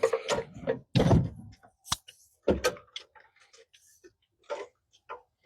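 Irregular knocks, clunks and sharp clicks of hand tools and metal parts being handled, with a crisp click about two seconds in.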